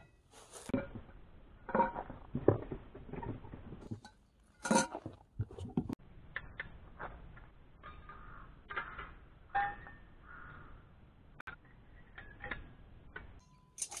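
Camp cookware and gear being handled: irregular clinks and knocks of metal pots and utensils, a few of them louder.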